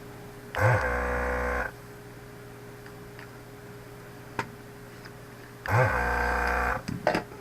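Vacuum pump of a desoldering tool switching on twice, running for about a second each time with a steady buzz, as solder is sucked off the LED pins of a circuit board. A sharp click comes between the two runs, and a few more clicks come near the end.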